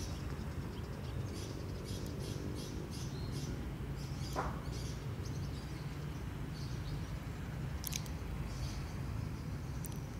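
Small birds chirping in short runs over a steady low rumble, with one brief, louder call about four seconds in.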